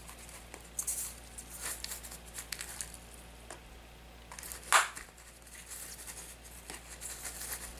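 Damp soil substrate in a tarantula enclosure being dug and pressed by hand to seat a water dish: irregular rustling and scraping with small clicks, and one sharper scratch a little past halfway.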